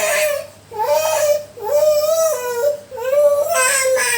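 A small child crying hard while being massaged: long high-pitched wails, broken by quick breaths.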